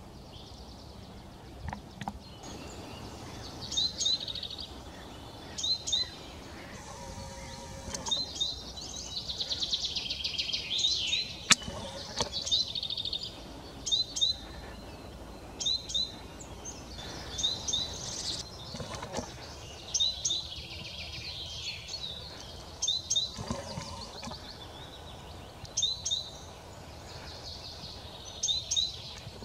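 Woodland birdsong: a songbird repeats a short phrase of quick high chirps roughly every two seconds, with a rapid run of notes from another bird around ten seconds in. A single sharp click stands out about eleven seconds in.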